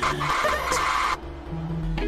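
Cartoon soundtrack: a harsh, chaotic glitch noise layered over music, cutting off suddenly about a second in. After a brief dip a low held note comes in near the end, opening the end-card music.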